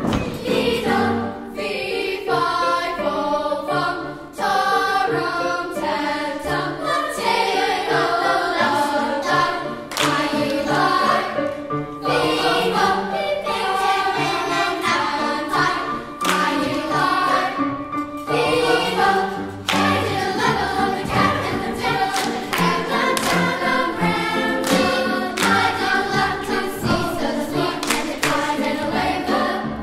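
Children's choir singing in unison and parts, accompanied by piano.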